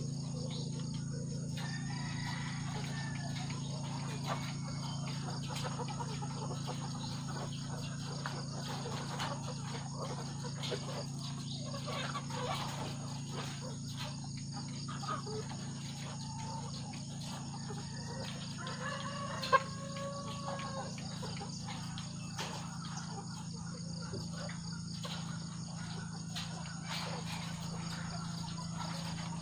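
Caged ready-to-lay pullets clucking and calling, with one drawn-out call a little past the middle that starts with a sharp tap. Scattered small clicks and a steady low hum run underneath.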